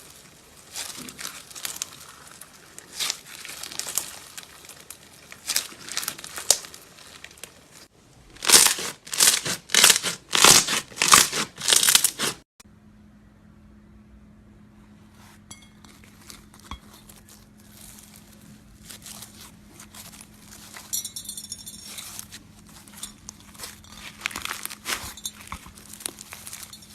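Slime being squeezed and pressed, giving crinkly, crackling squishes. About halfway through there is a run of about eight loud squishes in quick succession, then after a sudden cut there are softer crackles over a faint steady hum.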